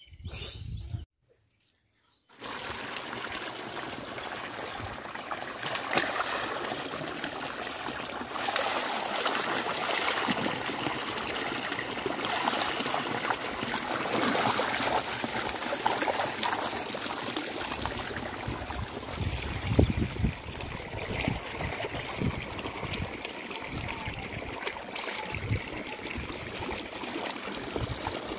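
Water gushing steadily from a pipe into a stone tank, splashing as raw goat meat is rinsed under the flow. It begins about two seconds in.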